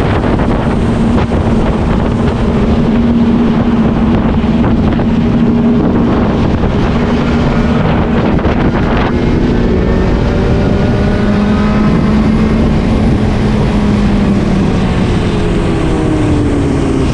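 Benelli 600i motorcycle's inline-four engine running under way, heavily buffeted by wind noise on the microphone. The engine note holds steady at first, climbs slowly from about halfway, and falls near the end.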